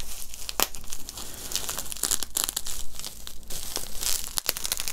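Plastic bubble wrap crinkling and crackling as it is unwrapped by hand, in quick irregular rustles.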